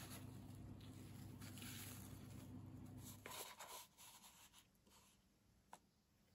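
Faint scratching and crumbling as brittle carbon 'snakes' from burnt sugar and baking soda are handled, over a low steady hum. About three seconds in the hum stops, leaving only a few light clicks.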